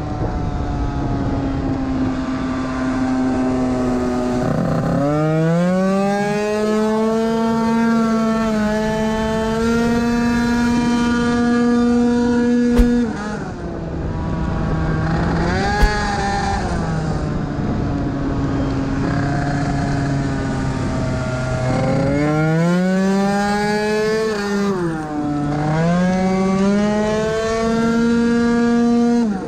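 Tuned 70cc two-stroke engine of a Piaggio Zip SP race scooter at high revs. The pitch holds high and steady for long stretches, dips as the throttle closes for corners, then climbs back under acceleration, several times over.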